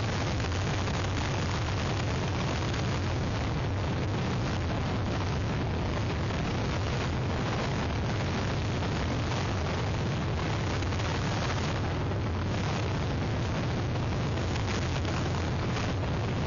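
Hurricane wind buffeting an outdoor webcam microphone: a steady low rumble with hiss over it, unbroken and at an even level.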